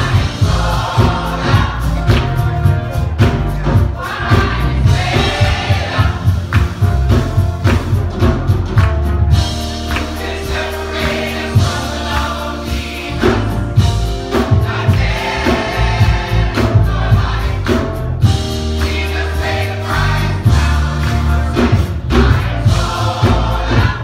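A gospel choir singing, with a strong bass and a steady beat underneath.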